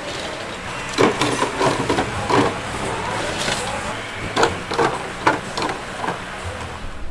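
Irregular knocks and taps of cooking utensils, a few seconds apart in clusters, over a steady hiss.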